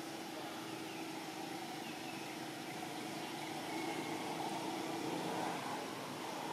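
A steady mechanical hum over an even hiss, growing a little louder about four seconds in.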